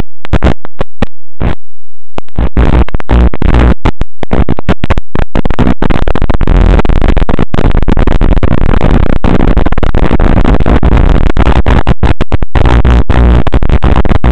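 Loud harsh static with a low buzz, cutting out in many brief gaps, especially in the first few seconds: the noise on the audio channel of an analog FPV video link as recorded by the goggles' DVR.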